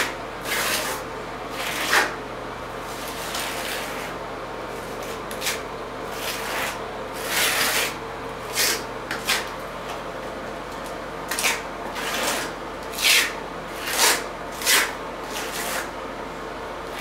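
A brush stroking and dabbing wet liquid waterproofing membrane onto fiberglass mesh tape along a shower's wall-to-floor corner: short, scratchy strokes at an uneven pace of about one or two a second, over a faint steady hum.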